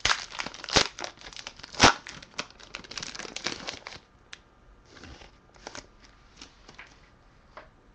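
Foil wrapper of a 2011 Panini Certified football card pack being torn open and crinkled by hand, with sharp snaps near one and two seconds in. Around four seconds in it gives way to quieter rustling and light ticks as the cards are slid out of the torn pack.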